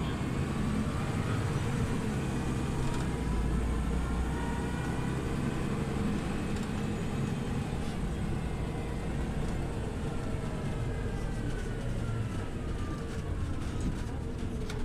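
Scania OmniLink CL94UB city bus under way, heard on board: steady engine and drivetrain rumble, with a whine that climbs in pitch over the first few seconds and falls away near the end.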